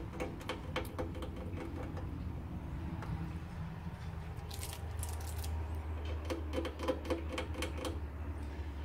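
Light clicks, several in quick succession, from an oil-filled heater's mechanical timer dial being worked by hand, in two runs with a brief scratchy rustle between them. A steady low hum runs underneath.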